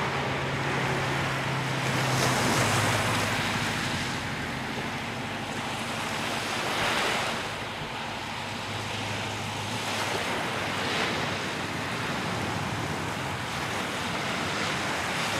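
Lake Michigan waves washing in toward the shore, the surf swelling and easing every few seconds, with wind and a faint low hum underneath at times.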